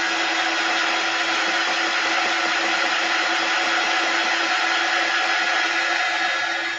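Handheld craft heat tool blowing hot air to dry ink on a canvas tote: a steady fan noise with a constant hum, switched off at the very end.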